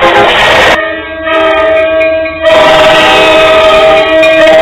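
MBTA commuter rail diesel locomotive sounding its air horn on its approach: a loud, steady blast of several held notes that swells about two and a half seconds in, after a noisy rush of the oncoming train.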